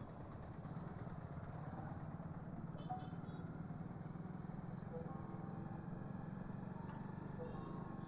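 Motorcycle engine running steadily at low road speed, a constant low engine note with light street traffic around it.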